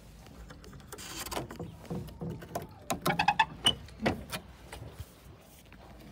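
Wooden smokehouse door being unlatched and swung open: a series of knocks and rattles, with a short creak about three seconds in.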